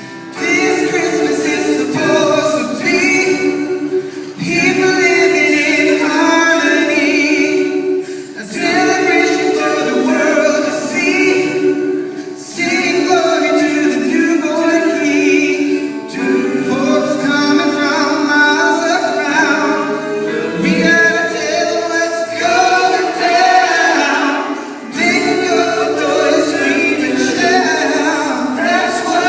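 A choir singing without instruments, a slow melody in phrases of about four seconds each.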